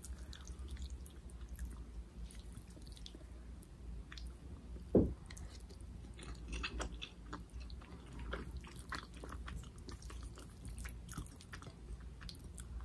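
A person chewing instant noodles close to the microphone, a run of small wet clicks and smacks. A brief thump about five seconds in stands out.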